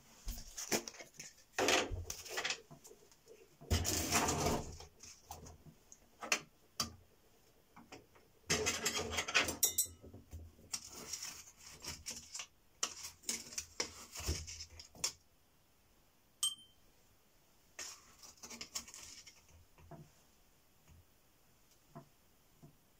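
A metal spoon scraping and scooping powder in a plastic tub, with irregular handling clatter of the tub and a brief, light metallic clink about two-thirds through.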